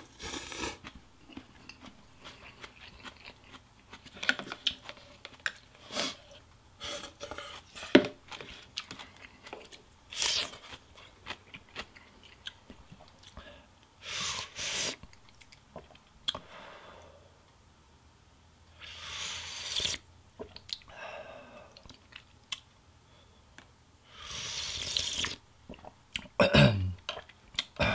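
Close-up eating sounds: rice noodles slurped, then chewing with small wet clicks, and several long slurps of pho broth sipped from a soup spoon.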